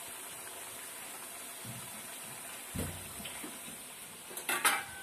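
Lentil vadas deep-frying in hot oil, a steady sizzle, with a dull knock about three seconds in and a clatter of metal dishes near the end.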